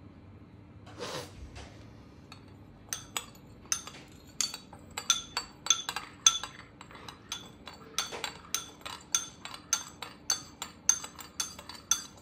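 A spoon clinking rhythmically against a small ceramic bowl of milk, about three clinks a second, starting about three seconds in: stirring the milk. A brief rustling swish comes about a second in.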